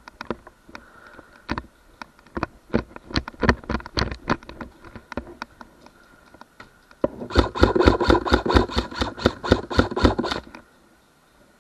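Airsoft gun fire: scattered single shots, then a rapid full-auto burst of roughly nine shots a second with a mechanical whir behind it, lasting about three and a half seconds before stopping abruptly.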